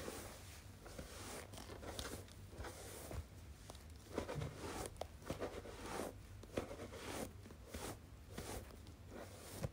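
Hairbrush stroked close to the microphone in soft, scratchy brushing strokes, roughly one a second and unevenly spaced.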